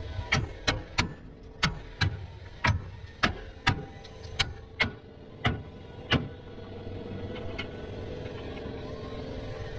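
About a dozen sharp hammer blows on metal, roughly two a second, stopping about six seconds in, over a steady hum.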